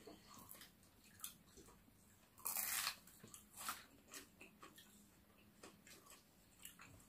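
Biting and chewing crispy fried food close to the microphone. There is one louder crunch about two and a half seconds in and a smaller one about a second later, with faint chewing clicks around them.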